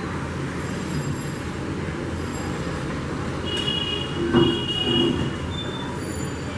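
Steady low rumble of city traffic, with two short high tones about four and five seconds in.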